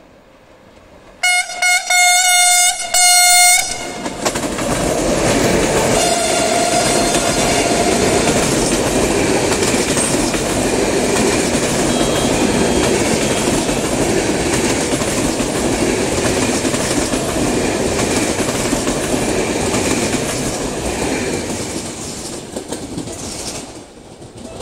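Locomotive-hauled passenger train sounding its horn in several short blasts about a second in, then passing close by with the rumble and clickety-clack of its coaches over the rail joints, fading away near the end.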